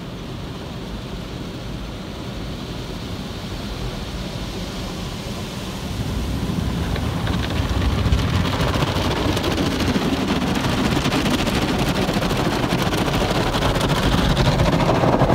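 Car wash tunnel's water spray and soft cloth brushes washing the car, heard from inside the cabin as a steady rushing noise that grows louder about six seconds in.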